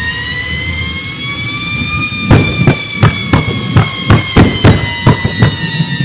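Homemade turbojet engine in a jet-powered Mini drag car: a high turbine whine rises for about two seconds, then sinks slowly, while flames shoot from the jet pipe. From about two seconds in, some ten loud bangs come in quick succession, about three a second, as the engine fails.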